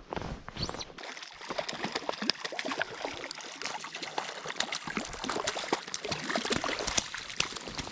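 Lake water splashing and trickling close by, a dense run of small splashes and drips.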